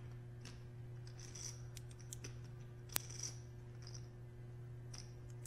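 Poker chips clicking faintly as a player handles and riffles them at the table, with one sharper chip click about three seconds in, over a steady low hum.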